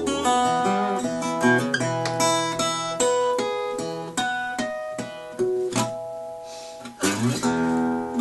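Acoustic guitar picked solo in a ragtime blues style, notes ringing on, with a loud full chord struck about seven seconds in.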